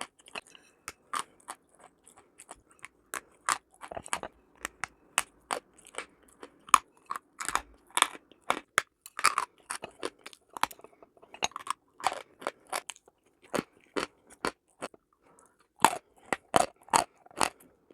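Chalk being bitten and chewed: a dense run of sharp, crunchy snaps, several a second, with a short break of about a second near the end.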